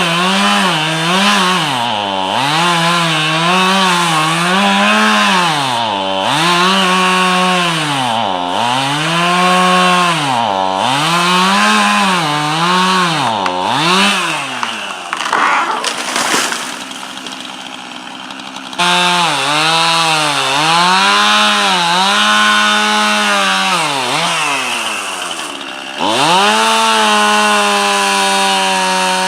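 Chainsaw engine revving up and down over and over, its pitch rising and falling every second or two, with a quieter stretch about halfway through.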